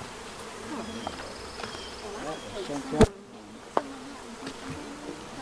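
A swarm of honeybees buzzing in the air around a hive as they are poured in, with the buzz of single bees rising and falling in pitch as they fly past. A sharp knock sounds about three seconds in, and a lighter one shortly after.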